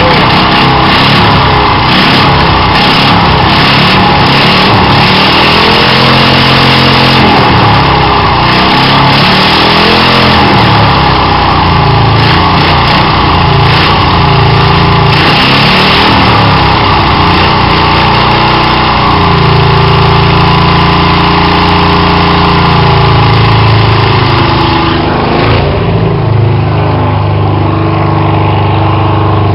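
V8 engine on a stand running loud, revved up and down several times, easing off near the end.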